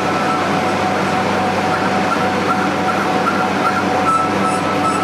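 A machine running steadily: an even mechanical hum with a constant high whine over a noisy rumble, and faint high ticking near the end.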